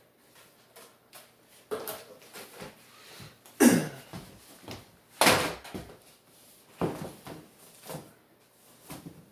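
A door being opened and shut: several separate knocks and bangs, the loudest about three and a half and five seconds in.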